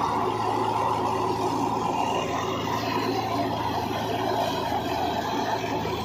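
Tractor-driven wheat thresher running steadily while wheat sheaves are fed in: a constant mechanical drone with a low hum beneath and a loud rushing noise above it.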